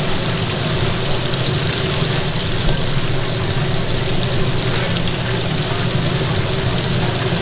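A constant low mechanical hum over a steady hiss of oil sizzling in a deep fryer, with one dull knock about two and a half seconds in.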